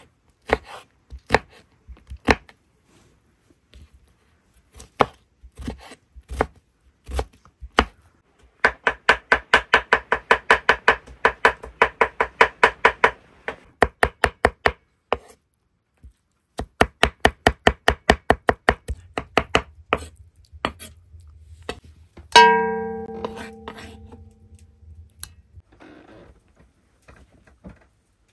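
Chef's knife chopping an onion on a wooden cutting board: a few separate cuts about once a second, then fast runs of chopping at about five strokes a second. Later a single metallic clang rings and fades over about two seconds.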